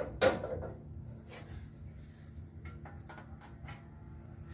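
One sharp knock, then a few light scattered clicks and taps as a thin sheet-metal panel is handled and bent by hand, over a steady low shop hum.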